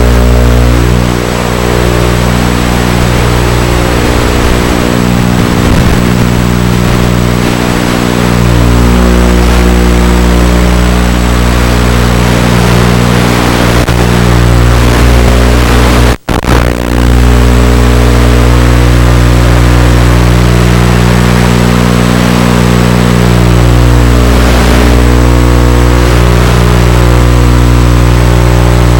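FPV quadcopter's electric motors and propellers running loud and steady, their pitch shifting as the throttle changes. The sound cuts out for a split second about 16 seconds in.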